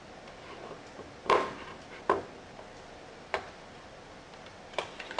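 About five sharp clicks and knocks at uneven intervals, the loudest about a second in: hard drives being handled and fitted into a computer's hard drive case.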